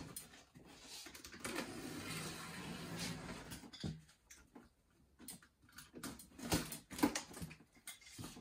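A small blade sawing at a plastic packing strap on a cardboard box: a steady scraping rasp for about two and a half seconds, then scattered light clicks and knocks as the strap and box are handled.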